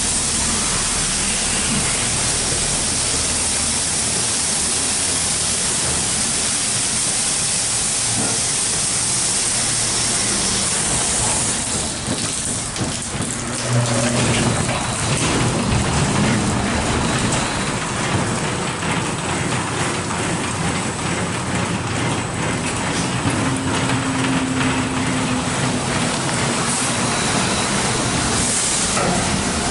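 Mark VII ChoiceWash XT rollover car wash running over a car: a steady, loud rush of water spray and brushes, with a low machine hum that comes in twice, about halfway and again later.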